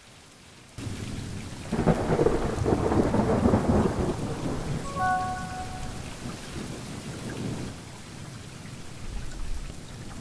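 Rain falling steadily, starting about a second in, with a long rumble of thunder from about two seconds in that slowly dies away.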